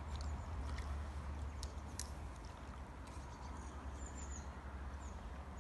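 Outdoor ambience with a steady low rumble and a few faint clicks, and short high chirps of a small bird about four seconds in.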